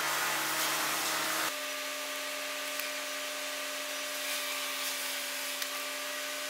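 Steady machine hum over a hiss, with a few faint ticks; the hum changes to a different pitch abruptly about a second and a half in.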